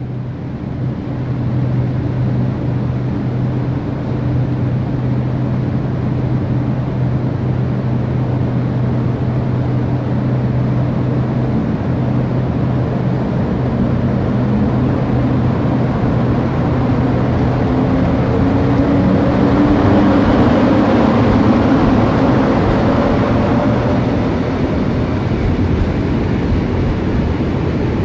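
Polish EP07 electric locomotive hauling a passenger train into the platform and past at close range: a steady low hum and rolling rumble, then pitched tones that rise and grow louder from about halfway through as the locomotive and coaches go by.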